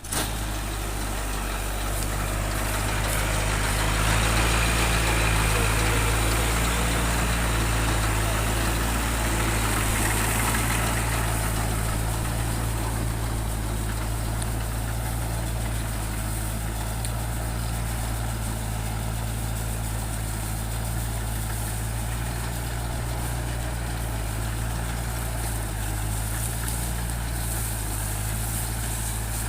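Tractor engine running steadily with a deep, even hum, a little louder between about four and eleven seconds in.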